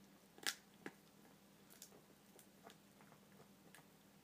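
Faint, scattered clicks and ticks of Chihuahua puppies chewing, with two sharper clicks about half a second and a second in.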